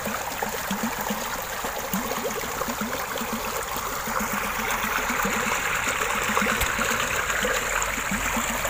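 Fast-flowing water in a narrow channel, churned by the paddles of a small homemade water turbine. It is a steady rushing that grows a little louder and brighter about halfway through.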